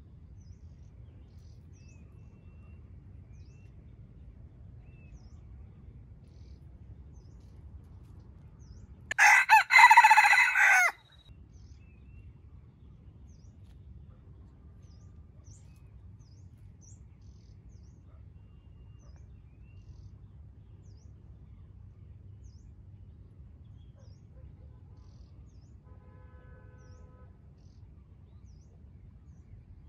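A red junglefowl rooster crows once, about nine seconds in; the crow lasts about two seconds and is by far the loudest sound. Faint chirps of small birds are scattered around it.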